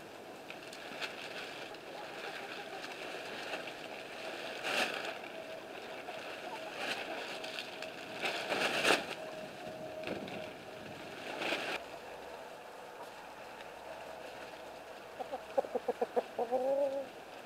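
A hen clucking: a quick run of short clucks near the end, finishing in a drawn-out, bending call. Before it come a few short rustling scrapes.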